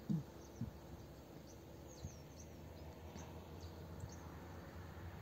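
Faint birdsong in open countryside: scattered short, high chirps every second or so over a quiet, steady background hum, with a brief low sound right at the start.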